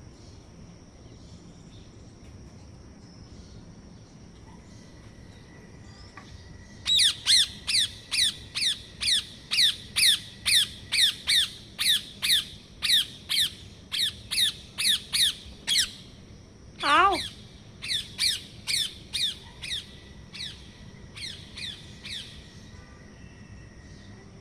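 Pet parrot squawking: after a few quiet seconds, a rapid series of loud, harsh calls, each falling in pitch, about three a second. About two-thirds of the way through comes one longer, lower falling call, then the calls resume more weakly and trail off.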